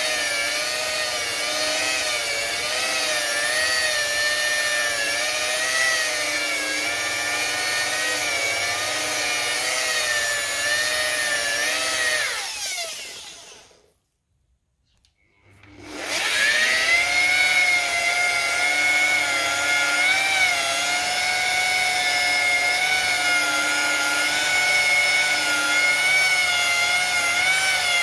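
Electric rotary polisher with a foam pad running at low speed on a plastic headlight lens during the compound-polishing stage, a steady motor whine that wavers slightly in pitch. About halfway through it winds down and stops, then starts again and runs back up to speed.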